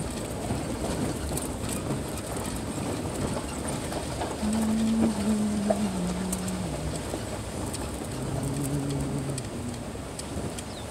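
Vehicle rolling down a dirt and gravel road, heard from inside the cab as a steady rumble of tyres on loose gravel. A short low hum that steps down in pitch comes in about halfway through and again near the end.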